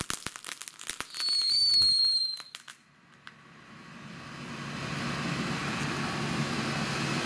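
Brothers V3P Volcano ground firework crackling and spitting sparks, then giving a loud whistle lasting about a second that falls slightly in pitch, a few last cracks, and burning out about three seconds in. After that a steady low rumble comes up and slowly grows louder.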